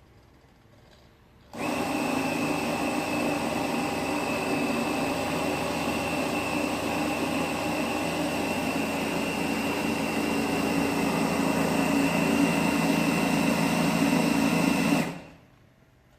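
RC boat hybrid power kit's drive running at a steady speed, with a high steady whine over it. It switches on abruptly, rises slightly towards the end, and cuts off shortly before the end.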